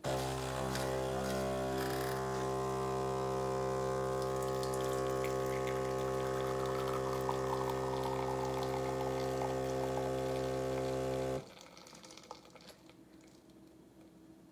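Philips 4300 Series fully automatic espresso machine's pump humming steadily as it pushes water through and dispenses, with liquid pouring over it. It starts suddenly and cuts off about eleven seconds in.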